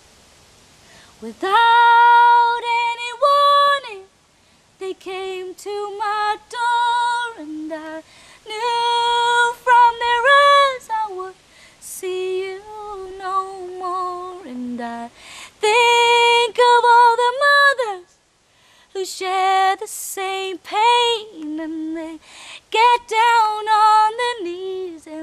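A woman singing solo and unaccompanied: a slow melody in long held notes, sung in phrases broken by short breaths.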